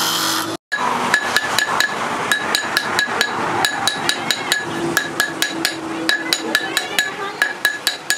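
A bench grinding wheel briefly, then a hand hammer tapping in quick, even blows, about three a second, each with a short metallic ring. The blows fall on the metal ferrule of a wooden machete handle resting on a steel stump anvil.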